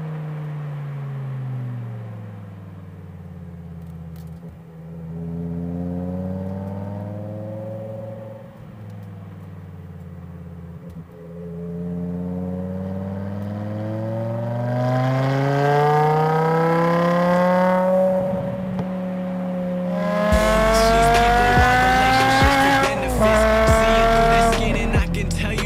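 BMW M5 E60's V10 engine heard from the exhaust end, its pitch climbing under acceleration and dropping off the throttle again and again. It grows louder in the last ten seconds, with a harder, denser run near the end.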